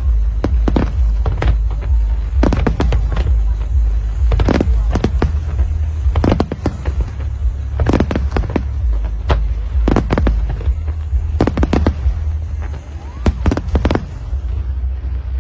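Aerial fireworks bursting: sharp bangs come in quick clusters every second or so, over a steady low rumble.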